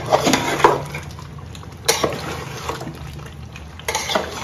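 A wooden spatula stirs chicken curry being fried in a thick masala in an aluminium pot, making wet, squelching sounds. It knocks against the pot a few times, sharply at about 2 and 4 seconds in.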